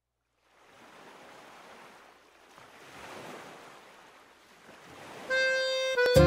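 Soft rushing noise that swells and ebbs, like surf or wind. About five seconds in, music with long held tones fades in and grows louder just before the end.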